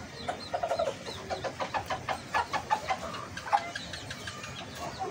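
Sebright bantam chickens clucking: a run of short, irregular clucks and a few brief calls, over a low steady background rumble.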